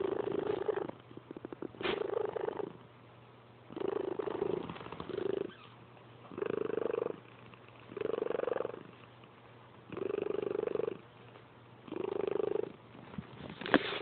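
Snoring: a rattling snore on each breath, about one every two seconds, eight in all.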